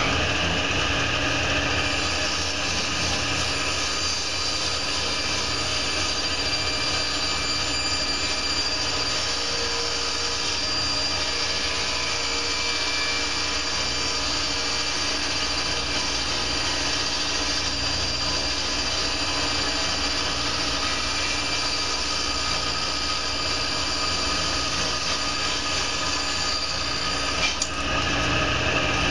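Cabinet table saw running, its blade ripping a long wooden panel fed along the rip fence: a steady whine with a hum beneath it. It runs free for about the first two seconds. Near the end the cut finishes and the blade runs free again, with a brighter tone.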